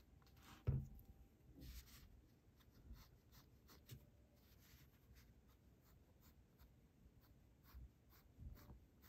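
Faint scratching of a graphite pencil on paper, many short strokes in a row, with one low thump about a second in.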